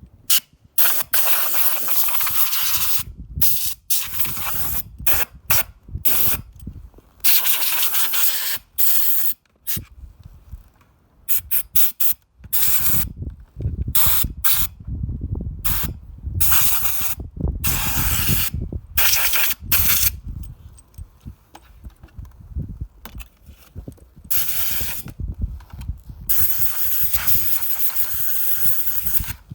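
Compressed air blown in repeated hissing bursts, some brief and some held for a few seconds, dusting out the inside of an iMac.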